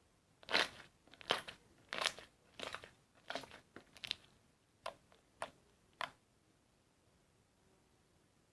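Slime being pressed and squeezed by hand, giving about nine short crisp crackles, roughly one every two-thirds of a second, that stop about six seconds in.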